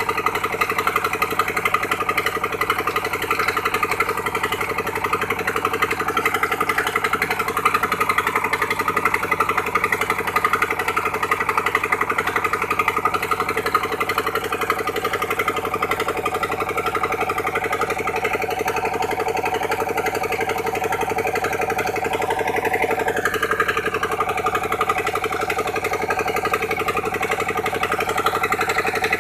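Engine of a sand-suction dredge pump machine running steadily at constant speed.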